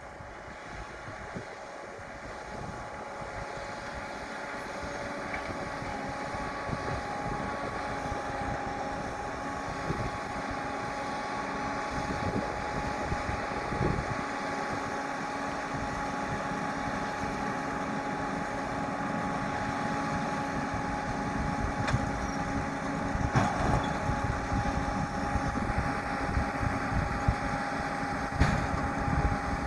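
New Holland T7 245's six-cylinder diesel running under load with a round baler working straw behind it, a steady whine over its engine note, growing louder over the first several seconds. A few sharp knocks sound near the end.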